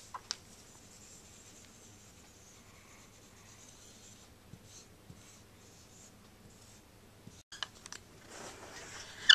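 Felt-tip dry-erase marker writing on a whiteboard: faint short scratchy strokes as letters are drawn, with a sharp click just before the end.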